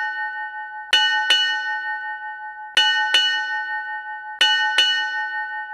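Ship's bell struck in pairs: three double strokes about two seconds apart, each pair ringing on between strikes. This is the closing part of eight bells, the signal that a four-hour watch is over.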